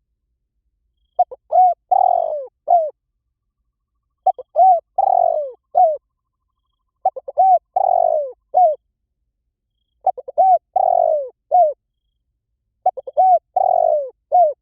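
Spotted dove cooing: five phrases, one about every three seconds. Each is a couple of short coos, a longer coo falling in pitch and a short closing coo.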